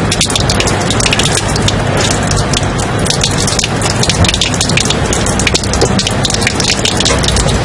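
Ambient white-noise track: a steady rush of noise full of dense, fast crackles, much like heavy rain.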